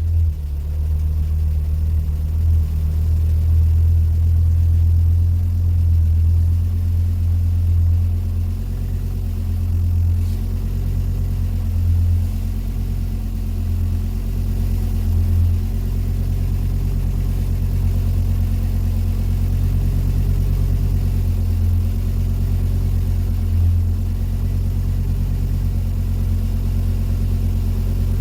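Volvo 850R's turbocharged five-cylinder engine idling with a steady low hum and small rises and dips in level.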